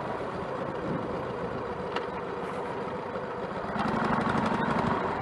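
Motorcycle engine running at low speed in traffic, getting louder for about a second around four seconds in.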